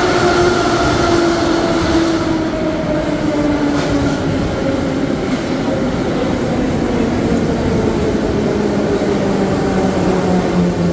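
Moscow metro train of the 81-717/714 'Nomernoy' type pulling into the station and braking. Its traction motors whine in several tones that fall steadily in pitch as it slows, over continuous wheel and rail noise.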